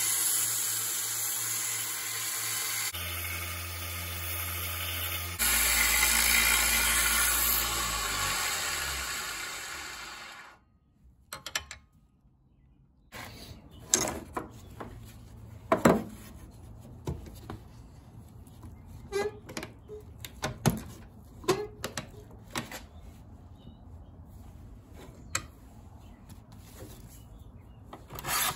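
Small belt grinder running steadily with a Damascus steel knife blade pressed against the belt, throwing sparks; the noise fades out about ten seconds in. After a short quiet gap come scattered knocks and clatters of hand tools being picked up and set down on a wooden workbench.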